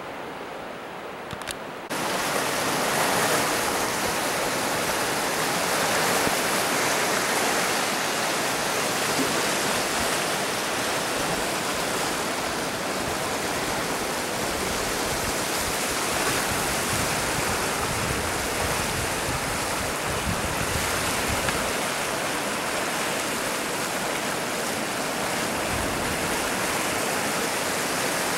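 Steady loud rush of fast-flowing floodwater in a swollen, muddy river, an even roar of water with no pauses. It starts abruptly about two seconds in, after a softer hiss.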